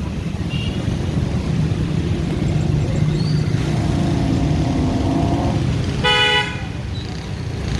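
Road traffic: a steady low engine rumble with a short, sharp vehicle horn toot about six seconds in, and another toot starting at the very end.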